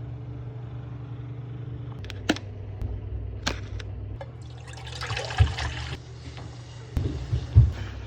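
Kitchen preparation sounds over a steady low hum: a few sharp clicks, about a second of pouring or running water, and then several knocks, the loudest near the end.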